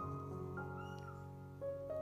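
Slow background music of held keyboard-like notes and chords, changing every half second or so.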